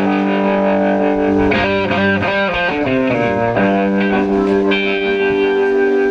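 Electric guitar played on its own: long held notes, with a short run of quick changing notes in the middle before it settles on held notes again.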